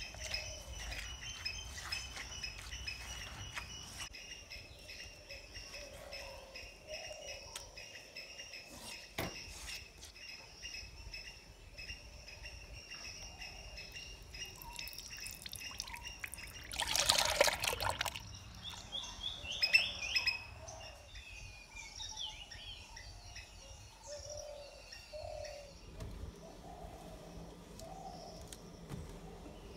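Grated coconut squelched and squeezed by hand, coconut milk trickling and dripping into a clay bowl, with a brief louder rush of noise about 17 seconds in. Birds chirp in the background.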